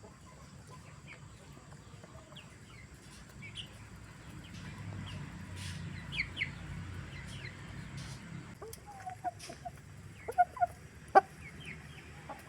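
Chickens clucking, with scattered short high calls and a quick run of louder clucks a little before the end.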